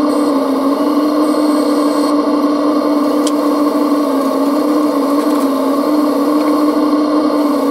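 Hydraulic pump of a radio-controlled scale-model Liebherr 956 excavator running with a steady whine that wavers slightly in pitch, as the demolition grab is worked.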